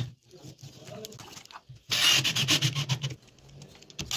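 Cordless drill-driver driving a screw through a steel lazy-Susan swivel plate into a board, in one run of a little over a second about two seconds in, with the motor's hum under a rapid grinding chatter. It is quiet before and after.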